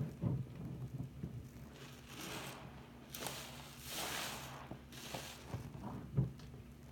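Soapy sponges squeezed and wrung in a sink of foamy water: wet squelches and sloshing as they are pressed under the water, the loudest about six seconds in, with a hissing swell of foam around the middle as they are lifted out.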